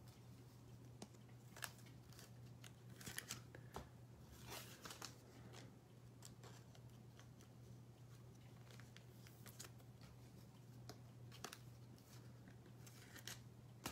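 Near silence: faint scattered rustles and clicks of trading-card box packaging being handled, over a low steady hum.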